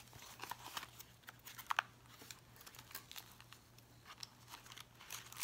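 Paper and card pages of a thick handmade junk journal being turned and handled: faint rustling with scattered light clicks and taps.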